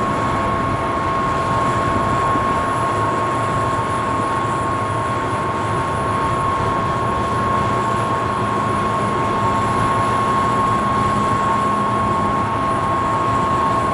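Steady machine noise with a constant high whine, unbroken and even in level.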